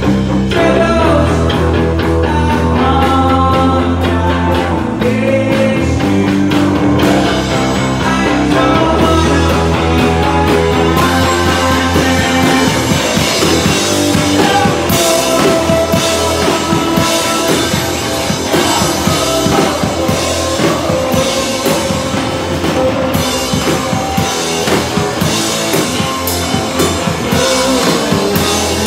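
A live rock band playing loudly: electric guitar and drum kit, with a vocalist singing.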